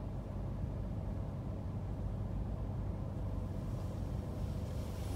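Steady low rumble of a car idling while stopped in traffic.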